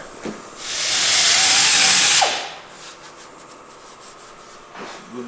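Air-powered tool fitted with a decal eraser wheel runs once for about a second and a half: a loud air hiss with a steady whine, then it spins down with a falling pitch.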